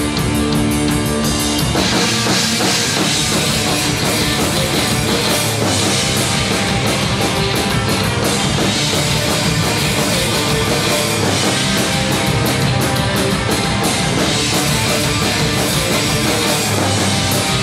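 Rock band playing live with two electric guitars, bass guitar and drum kit in an instrumental passage. Held guitar notes ring for about the first two seconds, then the full band comes in with driving drums and continues steadily.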